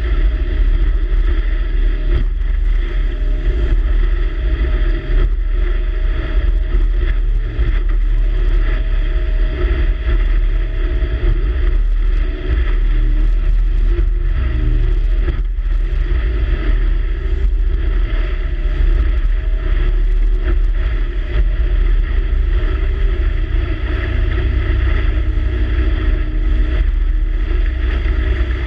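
Boat under way: a steady engine drone and water rushing past, with wind buffeting the microphone.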